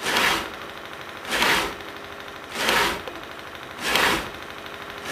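Hand-lever tobacco cutter slicing through dried tobacco leaves: four evenly spaced cutting strokes, about one every second and a quarter.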